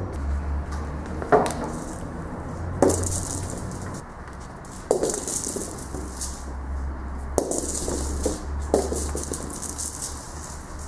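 A kitten's toy ball knocking and rolling on a wooden floor: six or so sharp knocks, one every second or two, with bursts of high rattling while the ball rolls.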